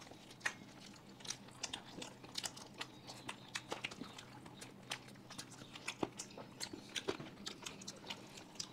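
Close-up sounds of people biting and chewing crispy fried food: many small, irregular crunches and mouth clicks, faint throughout.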